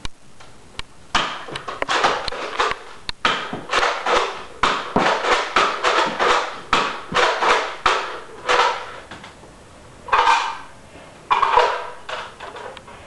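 Nerf foam-dart blaster being cocked and fired over and over, a quick run of plastic clacks and pops about two a second, followed by two louder, longer sounds after a short pause.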